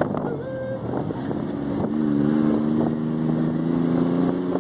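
Chevy S10 pickup's engine pulling under acceleration, a steady note that starts about two seconds in and rises slightly in pitch, over wind and road noise.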